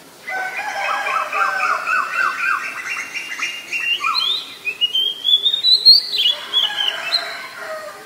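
Male oriental magpie-robin (kacer) singing: a quick run of repeated down-slurred notes, then high rising whistles in the middle and a string of falling notes toward the end.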